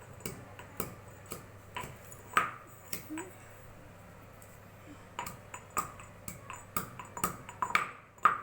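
Pestle pounding fresh vamu (ajwain) leaves in a mortar: sharp knocks with a brief ring, about two a second, with a short pause in the middle.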